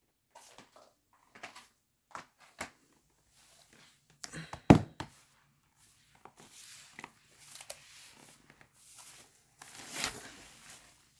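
Scattered light taps, clicks and rustles of handling in a small room, with one loud thump a little under five seconds in and stretches of rustling near the end.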